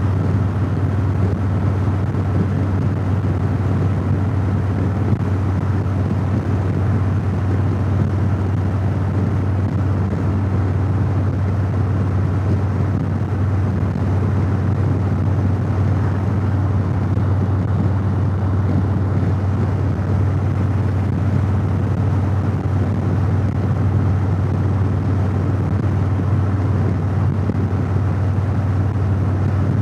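Cruiser motorcycle running at a steady highway cruising speed: an even low engine hum mixed with constant wind and road rush, with no change in revs.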